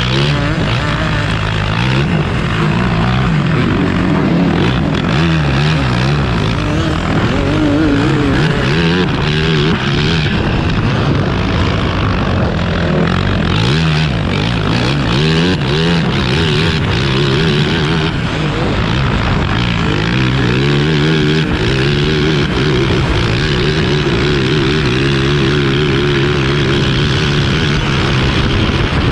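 A 2009 Yamaha YZ450F single-cylinder four-stroke engine driving a grass kart at racing speed, heard from onboard; the revs rise and fall repeatedly as it accelerates and backs off through the corners and down the straight.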